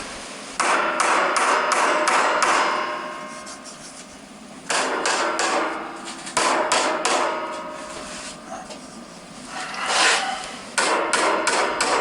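A hammer striking and crushing old wooden pencils. The blows come in about five bursts of several quick strikes, with short pauses between.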